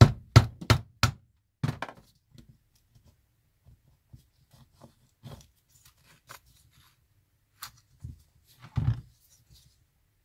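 Sharp knocks and clicks from hands working the rotary switch knob on a lathe coolant pump's cast-metal switch housing, to get the knob off. A quick run of four or five knocks in the first two seconds, then scattered faint clicks and one heavier thunk near the end.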